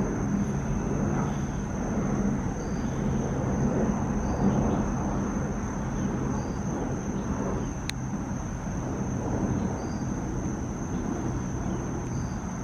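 Outdoor evening ambience: a steady low drone of distant engine noise, with a constant high insect trill above it and a short faint high chirp about every two seconds. A single sharp click comes about eight seconds in.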